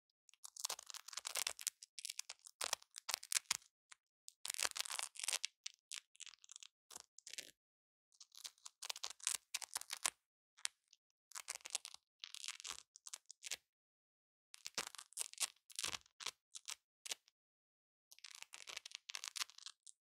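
Velcro (hook-and-loop fastener) crackling in bursts of rapid tiny crackles, each a second or two long with short silent gaps between them.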